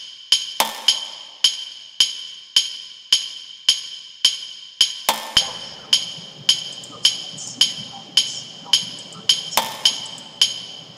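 Instrumental track with a sharp, ringing percussive hit repeating at a steady pace of just under two a second. About five seconds in, a rough hissing texture comes in beneath the hits and continues.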